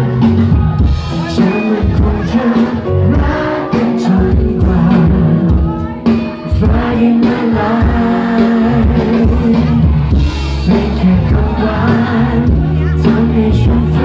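Live pop-rock band performing a song: amplified vocals sung over electric guitars and drums.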